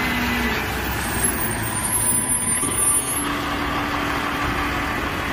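Garbage truck's diesel engine running, a steady mechanical noise with a few faint steady tones.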